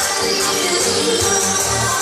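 Electronic dance music played loud through a concert sound system, with sustained bass notes under steady high percussion.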